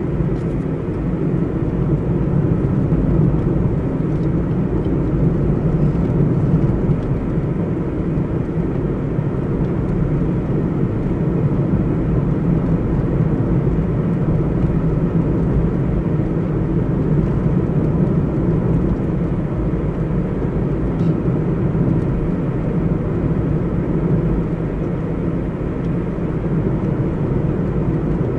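Steady low drone of a moving car heard from inside the cabin: engine and tyres running on asphalt, holding an even level throughout.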